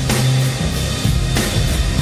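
Loud live rock music from a band: drums and guitar over a held bass note, with heavy drum and cymbal hits at the start and about a second and a half in.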